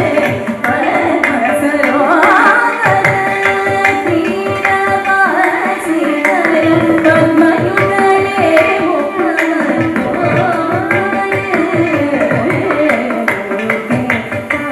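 Carnatic vocal music: a woman sings a melodic line, accompanied by violin and mridangam drumming with steady percussive strokes throughout.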